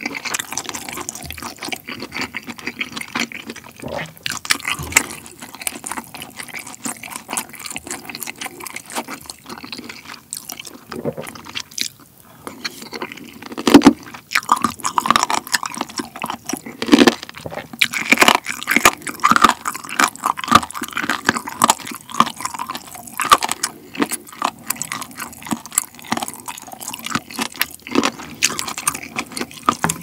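Close-miked eating of pork belly kimchi stew: wet chewing and slurping of spoonfuls of broth, with the spoon scooping in the bowl. It is a dense run of short wet clicks and smacks that gets louder and busier about halfway through.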